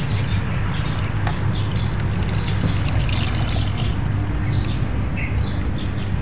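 Fresh coconut milk pouring and trickling through a wire-mesh strainer into a cooking pot, over a steady low rumble.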